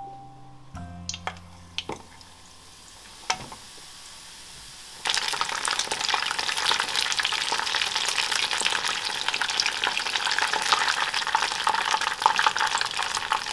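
Tempura deep-frying in hot oil in a small saucepan: a loud, dense crackling sizzle that starts suddenly about five seconds in and stops abruptly at the end. Before it there are only a few light clicks.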